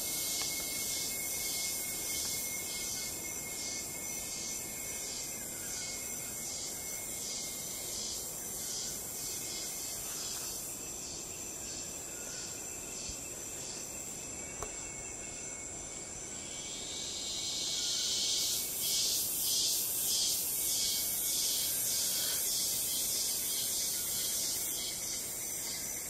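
Rainforest insects chirring: a steady high whine under a pulsing chorus that beats about twice a second. The chorus swells and grows louder about two-thirds of the way through.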